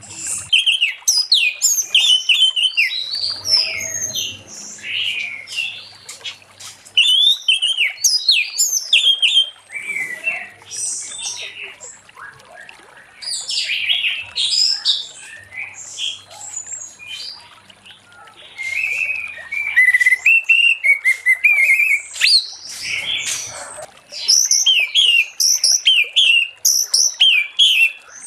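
Orange-headed thrush singing a rapid, varied song of short whistled and chattering phrases, delivered in bursts with brief pauses between them.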